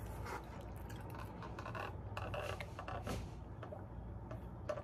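Close-up mouth sounds of a man chewing a burger, then sipping lemonade through a straw from a fast-food cup, with small wet clicks and slurps.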